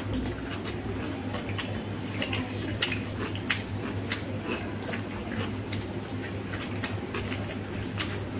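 Eating rice and egg curry by hand: wet squelching of fingers kneading rice into the gravy and smacking, chewing mouths, heard as many short irregular clicks. A steady low hum runs underneath.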